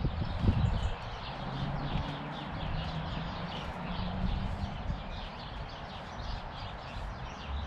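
Small birds chirping over a low outdoor rumble, with a couple of dull thumps about half a second in.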